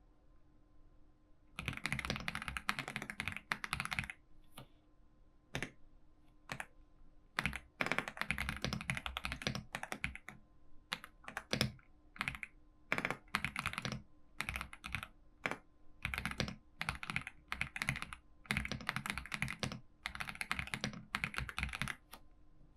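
Typing on a computer keyboard: quick runs of key clicks lasting a second or two, broken by short pauses.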